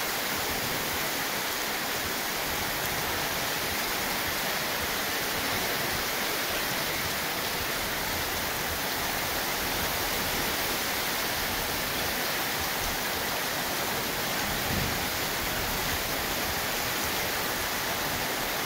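Heavy rain falling steadily, an even unbroken hiss of downpour.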